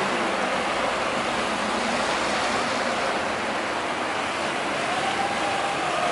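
Steady rushing wash of canal water churned by passing motorboats.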